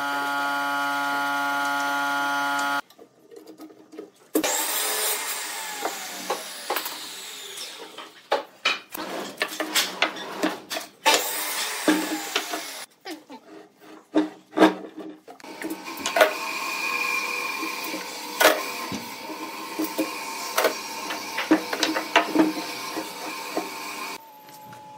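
Steel bar clamps being loosened and taken off a glued-up wooden blank: many sharp metal clicks and knocks of the clamp screws and bars, with some squeaking and wooden clunks as pieces are set down. A steady machine hum fills the first few seconds before a cut.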